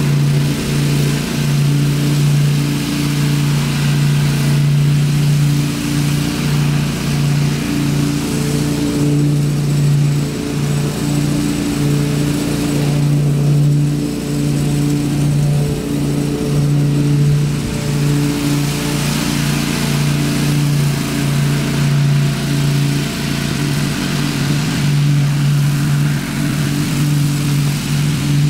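Ariens Zoom 42 zero-turn mower's engine running steadily while mowing, a low hum that swells and fades slightly as the mower moves across the lawn.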